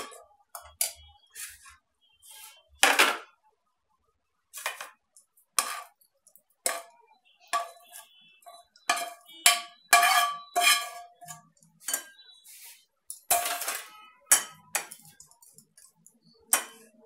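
Metal spoon scraping and knocking against a frying pan and a glass jar while chilli pickle is spooned from the pan into the jar: an irregular run of sharp scrapes and clinks, some ringing briefly.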